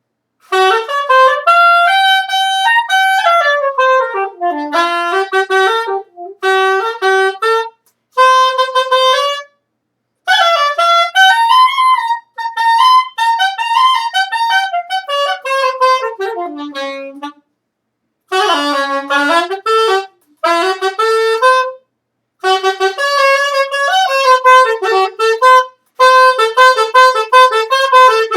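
A single wind instrument played solo: a slow melody of held and sliding notes in several phrases, with short breaks between them.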